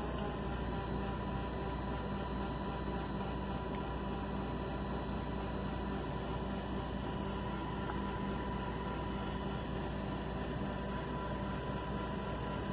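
Steady machine hum inside a truck cab, unchanging, with a faint high tone over it.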